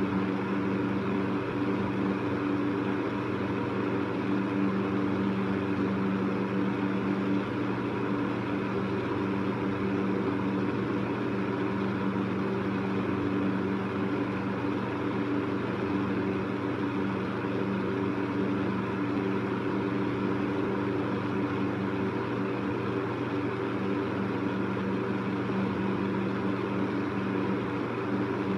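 Electric fan running steadily: a constant motor hum with a whoosh of moving air.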